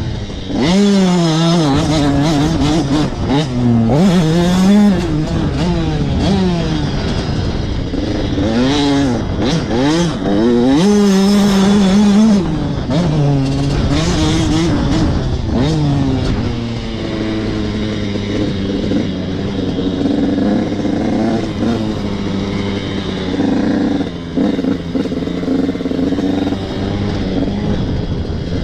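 KTM EXC enduro motorcycle engine under way, heard close up from the handlebars: the revs rise and fall again and again for about the first half, then run more steadily. Some clatter from the bike over the rough trail.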